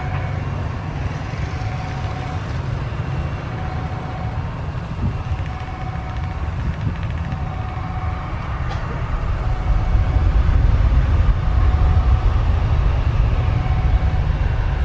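Jet airliner's engines at takeoff power, a deep steady rumble that grows louder about ten seconds in as the plane rolls down the runway.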